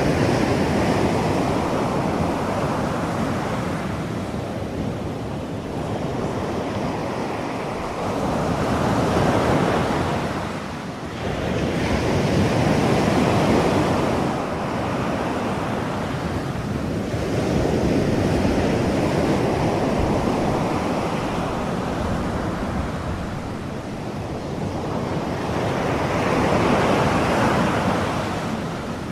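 Ocean surf as a steady masking sound bed: an even rushing wash that swells and ebbs every several seconds as waves break and draw back.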